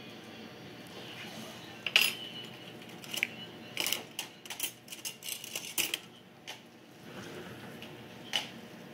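Stainless-steel orthodontic instruments clinking and clicking: one sharp click about two seconds in, a quick run of clicks in the middle, and a single click near the end.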